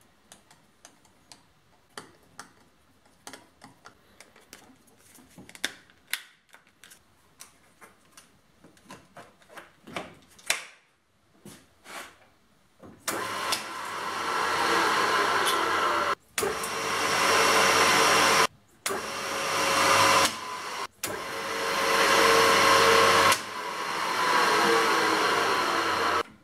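Small clicks and ticks of screwdriver work on electrical terminal screws. About halfway, an old three-phase electric motor starts and runs loud with a steady whine, building up and breaking off abruptly several times, then fading near the end.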